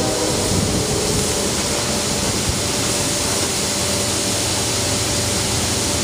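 Approaching diesel freight train, its locomotive's horn silent: a steady, hissing rumble with a faint low engine hum.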